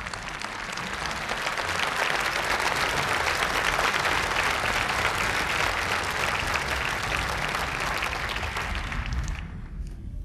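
A large crowd applauding. The clapping swells over the first couple of seconds, holds dense and steady, then cuts off suddenly near the end.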